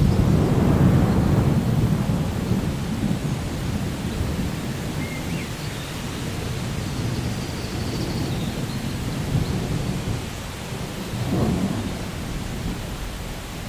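Steady rain with low rolling thunder, rumbling most strongly in the first couple of seconds and swelling again about eleven seconds in.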